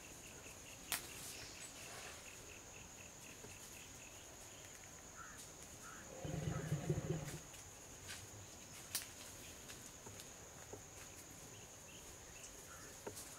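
Steady high-pitched drone of insects, with a few sharp clicks and a brief, louder low sound about six seconds in.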